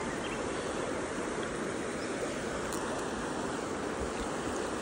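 River water rushing over a shallow, rocky riffle: a steady rushing noise.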